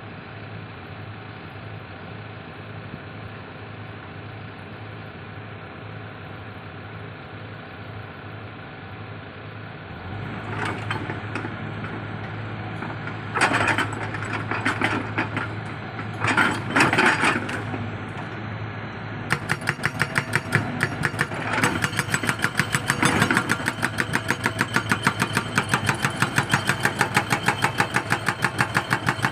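Excavator diesel engine running steadily, then rising with a few loud bursts of working noise. Two-thirds of the way through, the hydraulic breaker begins hammering with rapid, even blows, about three a second.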